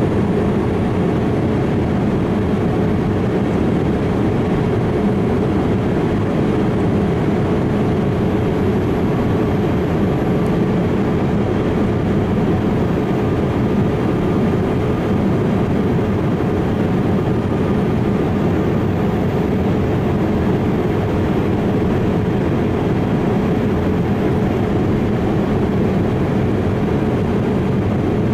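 Boeing 787-8's Rolls-Royce Trent 1000 jet engines running steadily: an even rushing noise with a constant low hum, no change in level.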